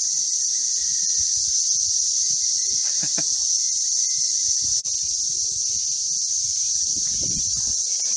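Steady, high-pitched shrill of a chorus of insects in tropical trees, unbroken and even in level.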